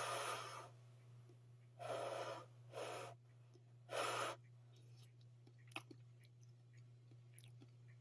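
A person blowing out four short puffs of breath over steaming-hot chocolate mug cake to cool it, followed by a few faint small clicks.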